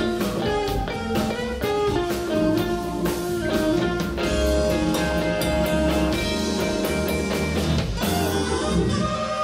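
Live soul-jazz band playing: electric guitar, electric bass, keyboard and drum kit together over a steady groove. Quick runs of notes give way about halfway through to longer held notes.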